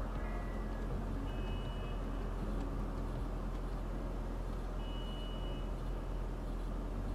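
Steady low rumble of idling cars in stopped traffic, heard from inside a car, with a high electronic beep twice, each lasting under a second.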